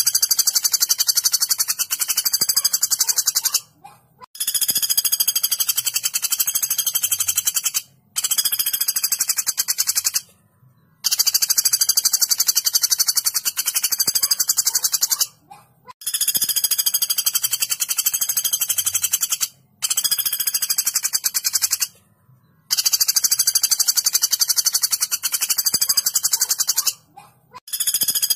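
Common flameback woodpecker (pelatuk bawang) giving long, fast, high-pitched rattling trills, one after another with short breaks between them, about seven in all.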